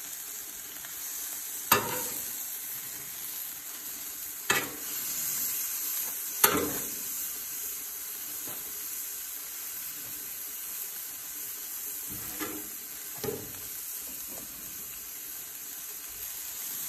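Birria tacos sizzling steadily as they fry on a Blackstone flat-top griddle. A metal spatula knocks and scrapes on the griddle steel about five times, loudest about six and a half seconds in.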